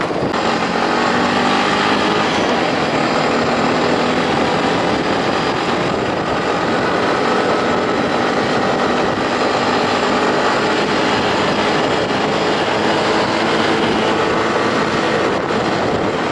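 Vehicle driving at a steady speed: a continuous engine and road noise that holds level throughout.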